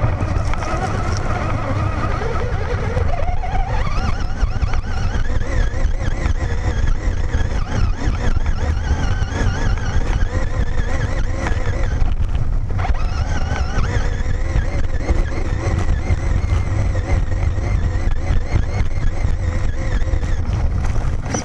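Traxxas Slash VXL RC truck driving across grass: its brushless motor whines, rising and falling in pitch with the throttle, over a heavy, steady low rumble.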